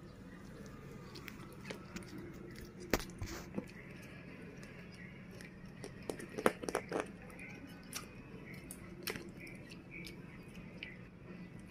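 A piglet and a baby macaque sucking milk from baby bottles: scattered wet smacking clicks and sucks, bunched in a few quick runs, over a low steady hum.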